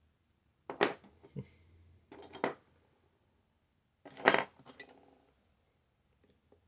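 Metal lock-picking tools clinking and tapping against a dimple lock, in three short clusters of sharp clicks with a little ringing.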